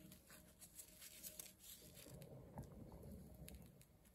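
Near silence, with faint rustling and a few light clicks from plastic-gloved hands and a paper towel.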